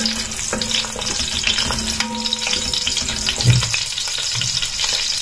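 Ginger sizzling and crackling in hot cooking oil as it is sautéed and stirred in a pot.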